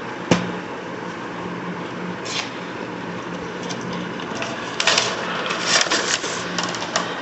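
Plastic packaging and box contents being handled: one sharp click near the start, then a dense run of clicks and rustles from about five seconds in, over a steady background hum.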